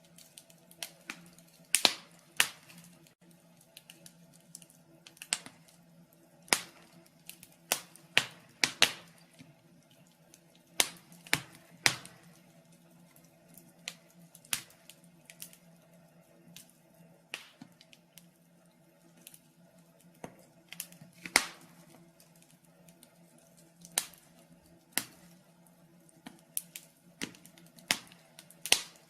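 Wood fire crackling in a fireplace: irregular sharp pops and snaps, some loud and some faint, at uneven intervals over a faint steady hum.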